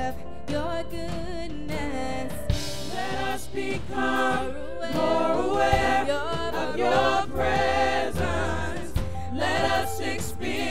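A gospel worship song sung by a small group of singers in harmony into microphones, with musical accompaniment underneath.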